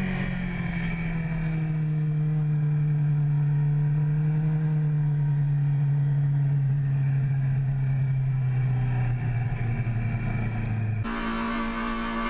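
Honda CBR600 F4i inline-four engine running steadily as the bike rides, its note slowly falling. About 11 seconds in, the sound changes abruptly to a hissing rush of wind with a higher, steadier engine note.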